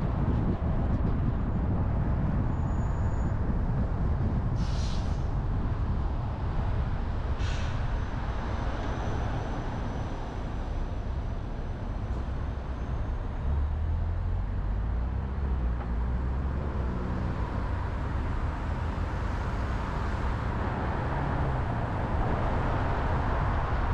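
Road and traffic noise from a moving car in city traffic: a steady rumble of tyres and engines. Two short hisses come about 5 and 7.5 seconds in, and a deeper low rumble swells about halfway through.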